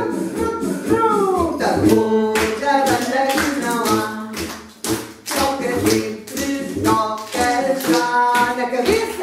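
A woman singing a song unaccompanied by instruments other than a steady beat of sharp taps or claps, about two every second and a bit.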